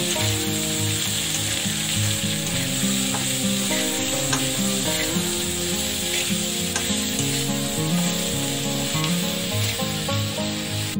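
Sliced onions frying in hot mustard oil in a kadai, sizzling steadily, with a few clicks of the wooden spatula as they are stirred.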